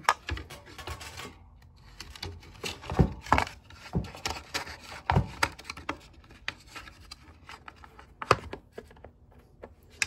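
Handling noises as a space heater's plastic housing and power cord are moved and fitted together: a series of light clicks and knocks with rustling and rubbing between them.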